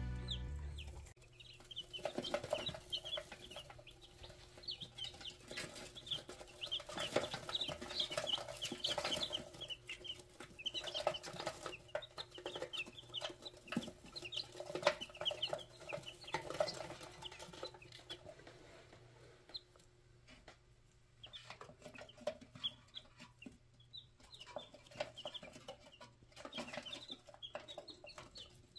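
Brood of newly hatched chicks peeping, many short, high-pitched peeps overlapping, busiest in the first half and thinning out later.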